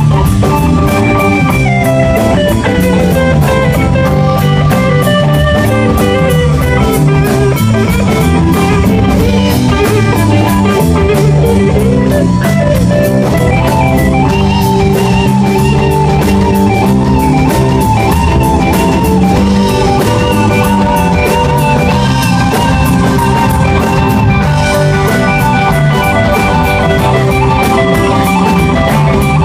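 Rock band playing live: electric guitar over a drum kit, with a steady cymbal beat.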